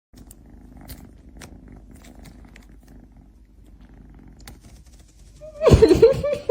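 Cat purring, a steady low rumble. Near the end, a loud, short, wavering cry cuts in over it.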